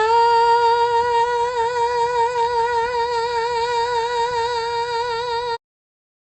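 A single unaccompanied voice singing one long, high held note with vibrato, after a quick scoop up into it. The note cuts off abruptly near the end.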